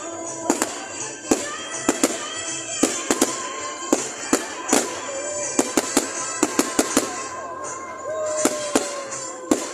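Fireworks bursting: sharp bangs and cracks in quick succession, about two a second, over a continuous crackle.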